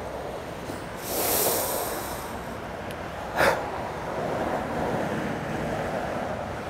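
A person breathing heavily and sniffing while crying: one long breath about a second in and a sharp sniff about halfway through, over a steady low background hum.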